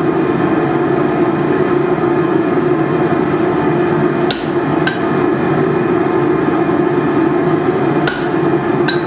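Hammer striking steel, a few sharp metal-on-metal blows about four, five and eight seconds in, over a loud steady roar.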